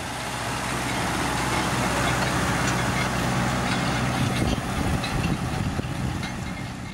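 Sonalika 90 HP four-wheel-drive tractor's diesel engine working under load as it pulls a plastic-mulch layer through the soil, a low steady engine hum under a broad rushing noise with scattered small rattles. It fades in over the first second and fades out near the end.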